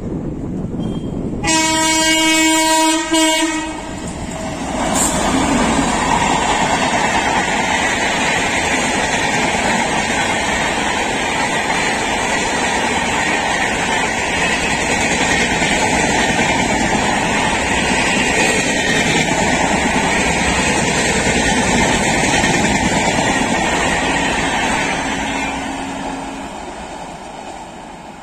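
A WAP-7 electric locomotive sounds its horn for about two seconds, then the locomotive and its coaches pass with a long, steady rush of wheels on rails that fades near the end.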